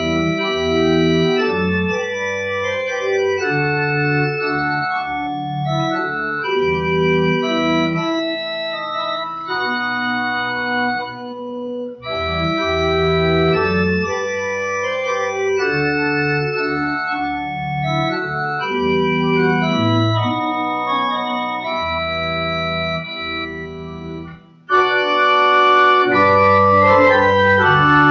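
Church pipe organ playing slow, sustained chords in phrases, with brief breaks about 12 and 25 seconds in; after the second break it comes back louder and brighter.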